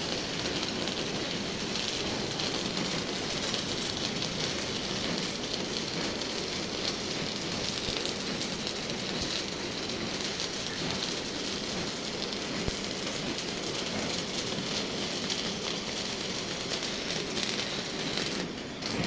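Stick welding arc crackling steadily with a dense, frying crackle, breaking off near the end.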